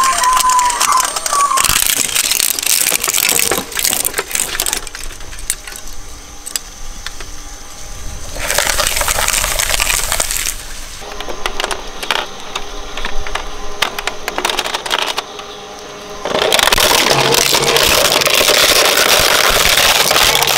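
Shredder crunching hard plastic toys: dense cracking and snapping in three loud spells, about two seconds in, around nine seconds in and from about sixteen seconds on, over a steady machine hum.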